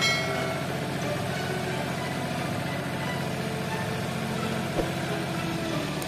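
Tractor engine sound effect running steadily at a constant pitch, with a short knock a little before the end.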